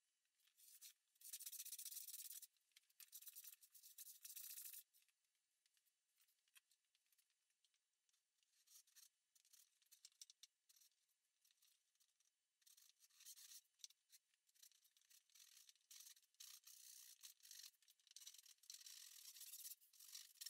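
Faint strokes of a backsaw cutting wood: two long strokes near the start, then quicker, shorter strokes from about halfway through that grow steadier toward the end.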